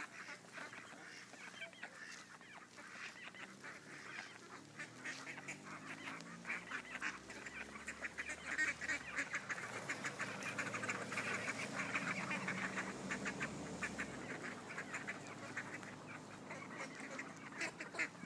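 A flock of young ducks calling together, a rapid chatter of many short overlapping calls that grows louder in the middle and eases off toward the end.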